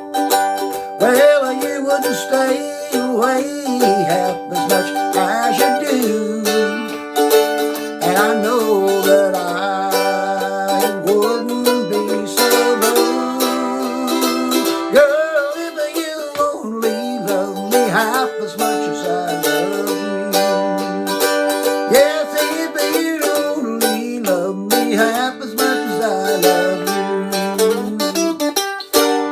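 Fender mandolin, freshly restrung after a tailpiece repair, playing an instrumental break with rapid picking, ending on a chord left ringing near the end.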